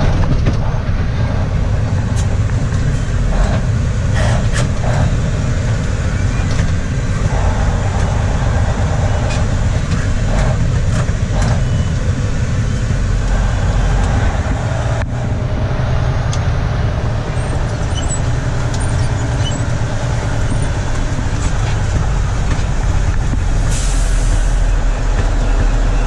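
Semi-truck tractor running without a trailer, heard from inside the cab: a steady low engine and road rumble with scattered short rattles. There is a brief hiss near the end.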